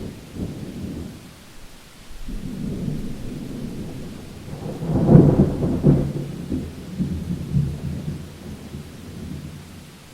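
Thunder rumbling: a short roll at the start, then a longer roll that builds to its loudest about five seconds in and slowly rolls away, over a faint steady hiss.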